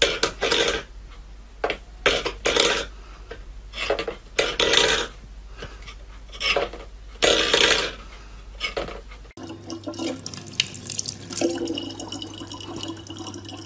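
A metal bowl scraping and rattling on a wooden floor in repeated short bursts as a cat paws at it. About nine seconds in, this gives way to water running steadily from a tap into a plastic bottle, over a low hum.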